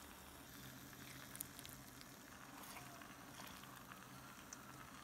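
Near silence: faint room tone with a few soft clicks as half a lemon is squeezed in a handheld citrus press over the pot of apples.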